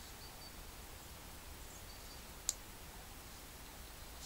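Faint steady background hiss broken once by a single short, sharp click a little over halfway through.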